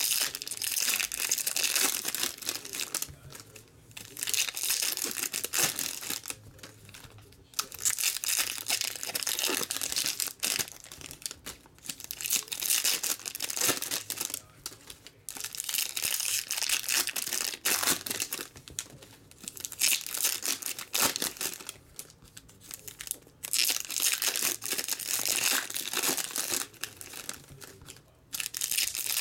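Shiny trading-card pack wrappers (2016 Bowman's Best baseball) being torn open and crinkled by hand, in repeated rustling bursts of one to three seconds with short pauses between.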